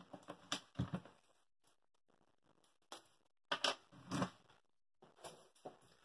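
Handling noise: a few quick clusters of light clicks and taps as wire ends and small plastic lever connectors are moved about and set down on a wooden table.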